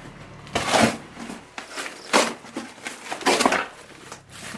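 Cardboard packaging and packing material being pulled open and crunched by hand, in three short bursts about a second apart.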